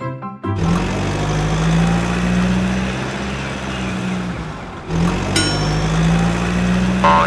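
Engine running steadily at a low, even pitch, cutting out briefly a little before five seconds in and starting again. A wavering siren tone begins right at the end.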